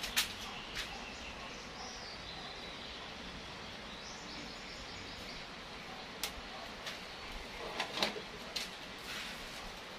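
Metal hand tools clicking and tapping now and then, the loudest cluster of clicks about eight seconds in, with a bird chirping faintly in the background for a few seconds.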